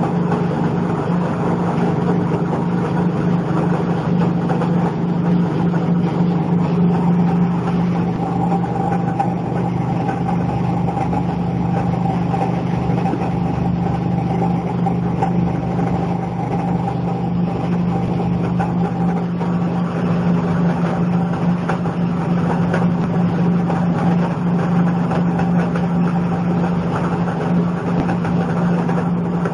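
PE film agglomerator running, its motor and rotor blades spinning in the drum as plastic film is fed in: a steady machine drone with a low hum and a fainter higher whine.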